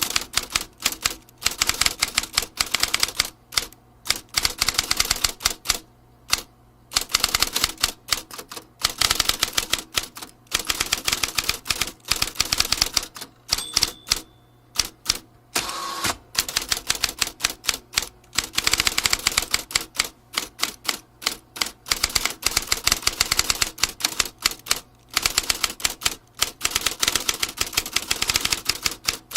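Vintage typewriter being typed on: fast runs of sharp key strikes, broken by short pauses every few seconds.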